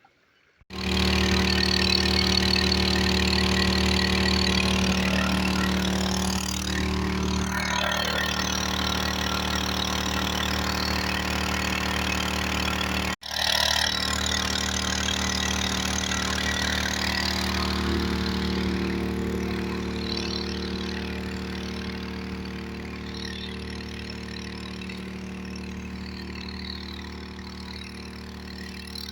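Champion semi-trash water pump's small gasoline engine running steadily at a constant speed. It comes in abruptly just under a second in, cuts out for an instant about halfway, and grows gradually fainter toward the end.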